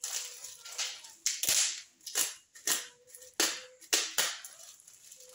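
Paper and plastic packaging rustling and crinkling as a small parcel is unpacked by hand, in a string of short, sharp bursts.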